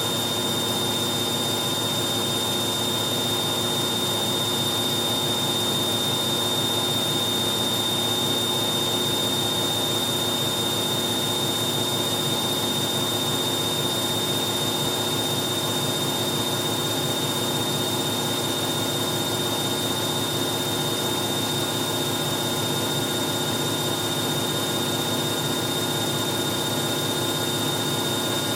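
Hoover 1100 De Luxe washing machine in its spin cycle, its motor running at a steady speed with a constant whine that holds the same pitch throughout.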